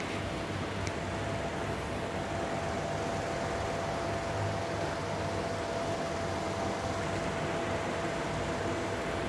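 A steady machine hum with a faint constant high whine running through it and no breaks.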